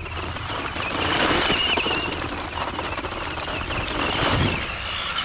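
Small electric RC dune buggy driving fast over gravel: a high motor whine that rises and falls with the throttle over the crunch and spray of gravel under its tyres. It grows louder about a second in as the buggy comes close.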